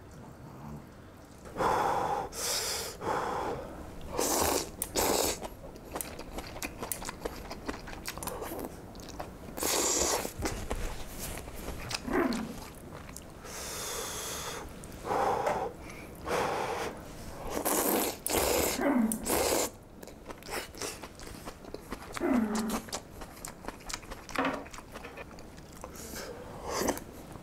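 A person slurping ramen noodles and spoonfuls of hot broth, again and again, each slurp a second or less, with chewing in between.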